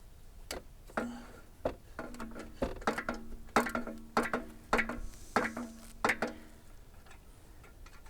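Ratchet wrench clicking as the alternator's mounting bolt is loosened. A few single clicks, then a steady run of clicks about every half second, with a faint metallic ring between them.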